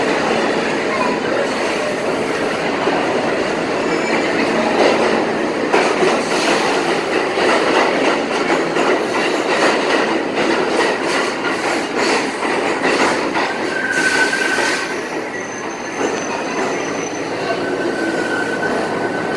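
R46 subway train on the A line running along the platform and slowing, its wheels clattering rapidly over the rail joints. Brief high wheel squeals come about two-thirds of the way through and again near the end.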